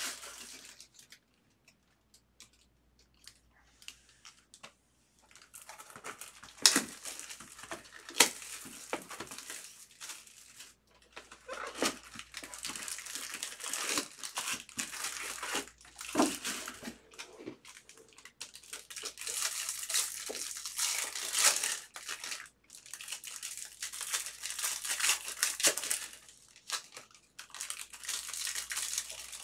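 Foil wrappers of baseball card packs crinkling and tearing as they are ripped open by hand, in repeated crackly spells with sharp snaps. It is faint for the first few seconds.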